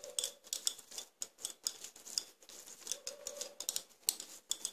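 Hands pressing and shaping sticky mashed boiled potato around a halved boiled egg: a quick, irregular run of soft wet clicks.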